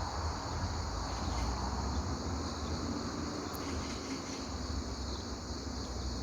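Forest ambience: a steady, high-pitched insect chorus, with a low rumble underneath.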